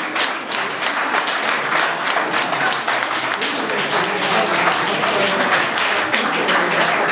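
Audience applauding, a dense steady clatter of many hands clapping, with a few voices heard among the claps.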